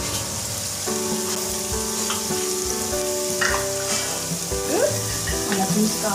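Shredded cabbage, carrot and capsicum sizzling as they fry in a steel pot, with a few light clicks. Faint background music with held notes plays underneath.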